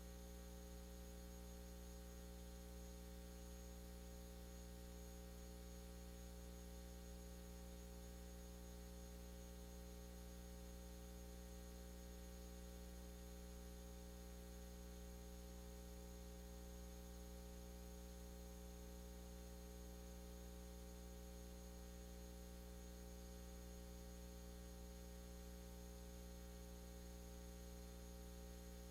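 Near silence apart from a faint, steady electrical mains hum: a low buzz with many steady tones stacked above it over light hiss, unchanging throughout.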